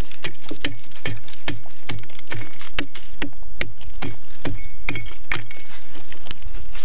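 Prospecting pick hacking into shale, about two blows a second, each a dull thud with a sharp clink of broken stone.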